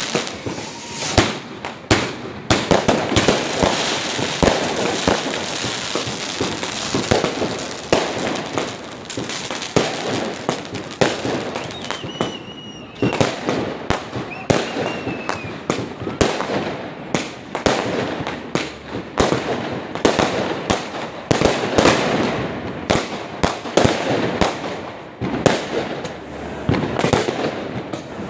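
Many fireworks going off together: rapid, overlapping bangs, pops and crackling with no pause, and two brief thin whistles about halfway through.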